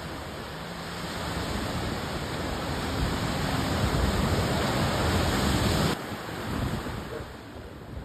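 Ocean surf washing against a rocky shore, a rushing noise that builds to its loudest as a wave breaks and then drops off sharply about six seconds in.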